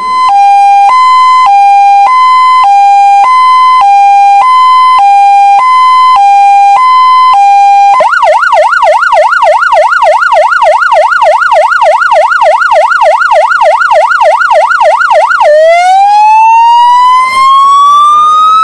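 Fire engine's electronic siren cycling through its modes: a high-low two-tone with each note about half a second long, switching about eight seconds in to a fast yelp of roughly three sweeps a second, then near the end a slow rising wail.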